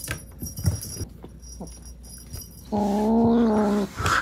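Black kitten giving an angry, drawn-out growling yowl, a single held call of about a second about three seconds in, as it guards its toy prey. Earlier, a few light clicks and jingles from the string toy on the floor.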